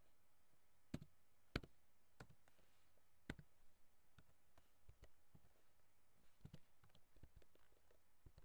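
Faint computer keyboard keystrokes, a dozen or so irregular clicks spaced about half a second to a second apart, over a low steady hiss.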